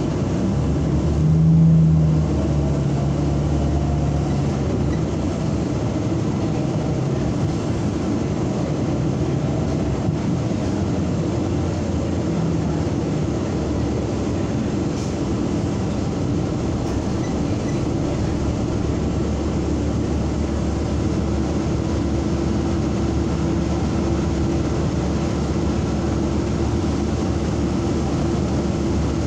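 NABI 45C-LFW transit bus heard from inside while under way: steady engine and road noise throughout, with a brief louder low drone about a second and a half in and a steady whine in the later part.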